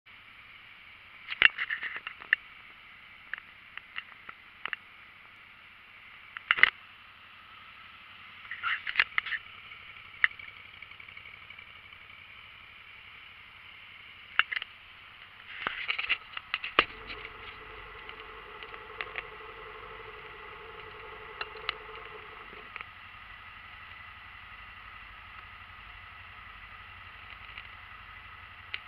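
Scattered clicks and scraping for the first half, then the Can-Am Spyder GS990's Rotax V-twin starts about 17 seconds in and idles steadily at about 1400 rpm in neutral. A higher steady tone on top of the idle drops away about six seconds after the start.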